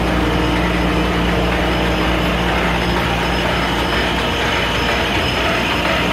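Steady drone of heavy industrial machinery running: a constant low hum over an even wash of mechanical noise, unchanging throughout.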